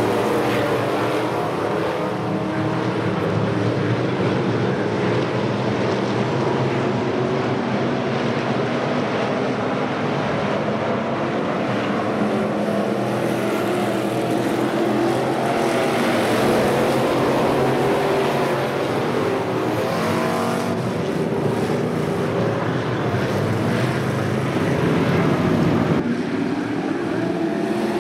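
A pack of dirt-track street stock race cars, their V8 engines running together around the oval. Several engines overlap, their pitch rising and falling as the cars lap and pass.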